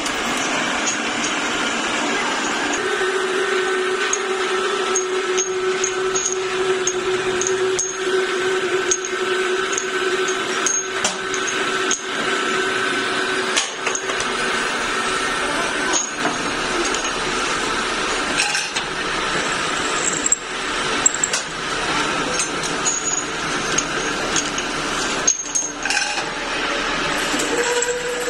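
Metal lathe running, with a steady tone through the first half, amid clinks and knocks of steel bar stock being handled.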